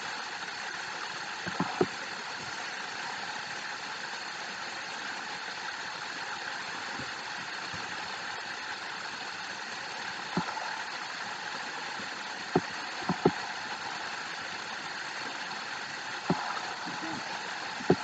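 Steady, even background noise, a hiss-like hum with no clear pitch, broken by a handful of short sharp clicks or taps.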